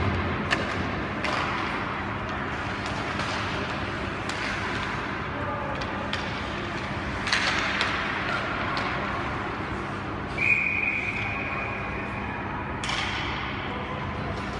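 Ice hockey game sounds in an arena: sticks, skates and the puck clacking and knocking on the ice and boards at irregular intervals over a steady rink din. A high steady tone is held for about two and a half seconds near the end, cut off by a sharp knock.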